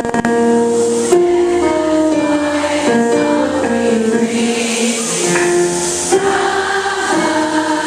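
A large group of high school girls singing their school's alma mater together, a slow melody in held notes.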